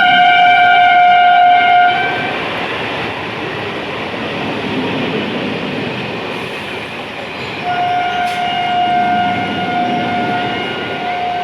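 Horn of an electric multiple-unit (EMU) local train giving a long blast that stops about two seconds in, followed by the noise of the train running past. The horn sounds again about two-thirds of the way through, with a short break near the end.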